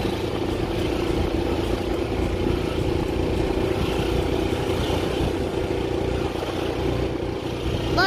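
A vehicle running steadily: a low motor hum with road and wind noise.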